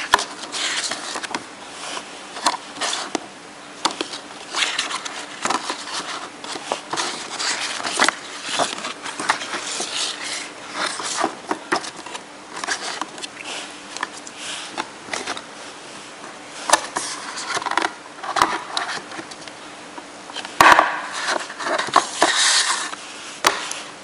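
Paper leaflets and cardboard packaging rustling, sliding and tapping as they are handled and pulled out of a graphics card box, in irregular bursts that grow busiest and loudest near the end, over a faint steady hum.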